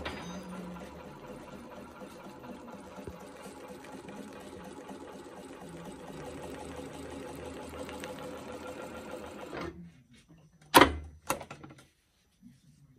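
Strobel 410 furrier's sewing machine running steadily as it stitches a strip of material, stopping abruptly after about ten seconds. Two sharp knocks follow about a second later, the first the loudest sound here.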